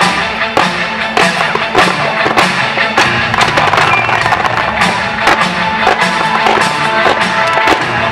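Music from a fireworks show set to music, with fireworks shells bursting over it in many sharp bangs and crackles.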